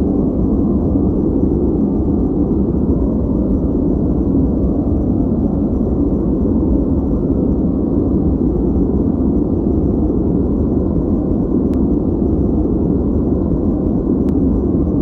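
Continuous noise track, steady and unchanging, deep and muffled with almost nothing in the high range.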